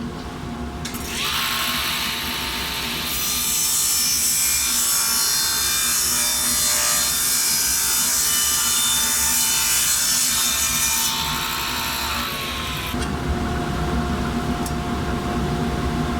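Grizzly table saw running while its blade rips a thin strip from half-inch plywood. The cut starts about a second in, runs loud for roughly ten seconds and dies away near thirteen seconds. The saw then runs on freely with a steady hum.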